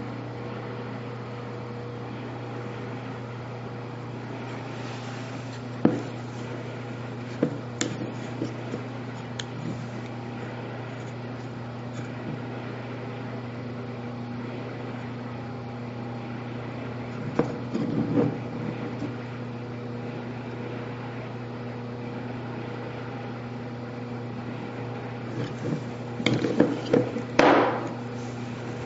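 Clicks and knocks from two compact Sig pistols, a P290 and a P232, being handled and set down on a table, with a louder cluster of knocks near the end. A steady hum runs underneath.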